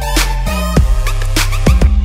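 Electronic background music with a heavy bass line and a busy drum beat.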